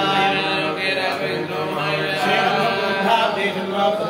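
Men's voices chanting continuously in unison, a ritual chant sung for the arati.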